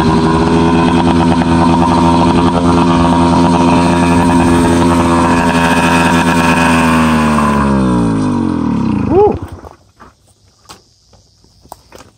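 FM-80 two-stroke bicycle engine with a small expansion chamber running at a steady speed, then dropping in pitch and dying away about eight seconds in as the bike coasts to a stop. A brief chirp sounds just as it stops, followed by a few light clicks.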